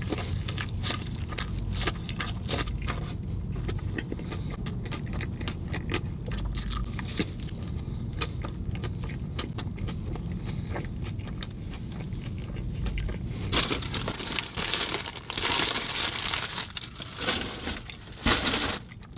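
Close-up biting and chewing of a fried fish sandwich: a bite, then steady mouth clicks and crunching as it is chewed, growing louder and noisier in the last few seconds.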